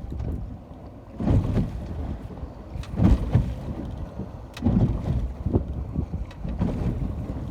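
Seawater washing and slapping in irregular surges about every one and a half to two seconds, with wind buffeting the microphone.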